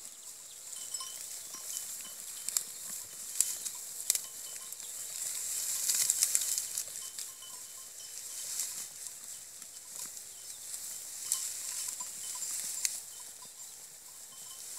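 Sheep grazing at close range, tearing at and chewing dry grass and straw stubble: a run of sharp crackles and rustling, busiest about six seconds in.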